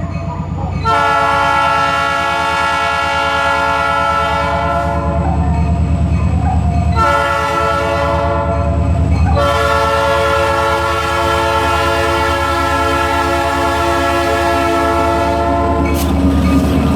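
Locomotive air horn on an EMD SD40-2 diesel sounding a loud chord in separate blasts: a long one, a short one about seven seconds in, then another long one ending about three seconds before the end, over the steady low rumble of the diesel and train.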